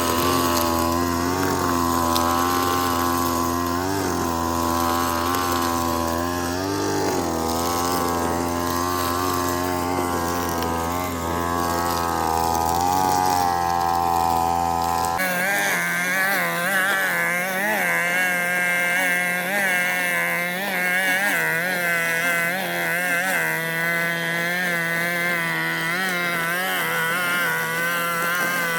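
Alpina petrol brush cutter's engine running continuously, its pitch wavering slightly. About halfway through the sound changes abruptly to a higher, thinner tone and runs on at that pitch.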